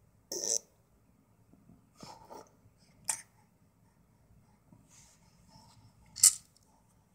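Infant's short, breathy huffs and snorts, four of them, the last one about six seconds in the loudest.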